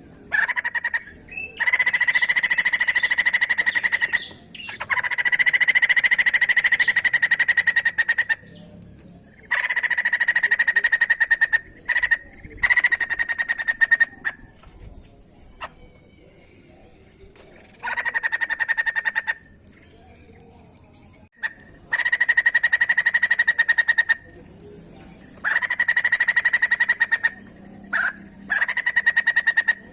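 White-crested laughingthrush (poksay jambul) giving loud bursts of rapid rattling chatter. Each burst lasts one to three seconds, about nine in all, with short quiet gaps between them.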